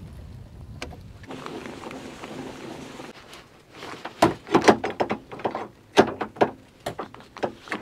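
A caravan roll-out awning being wound open with a hand-crank pole: a soft, even whirring of the winding, then from about four seconds in a run of irregular sharp clacks from the crank and the awning frame.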